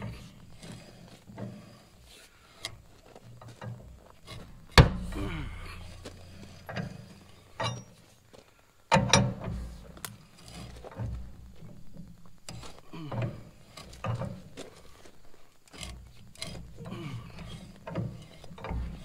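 Thread-cutting tap being turned by hand with a large wrench in an old cast-iron tractor manifold: irregular creaks, clicks and metal-on-metal rubbing as the tap cuts, with two sharp loud cracks about five and nine seconds in.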